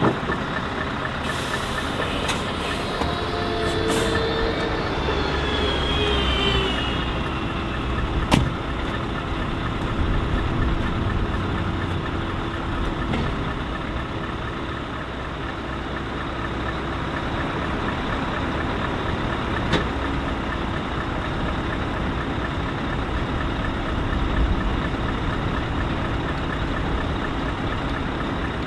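Heavy truck's diesel engine running steadily, with a brief whine rising and falling in pitch a few seconds in and two sharp clicks, one at about eight seconds and one at about twenty.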